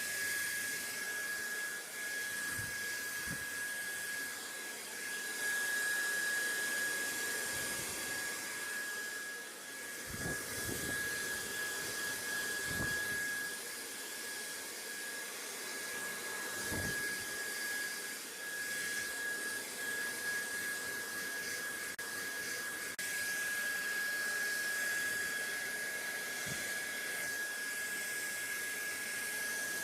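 BaByliss hair dryer running steadily: a constant rush of air with a steady high motor whine, and a few faint low bumps now and then.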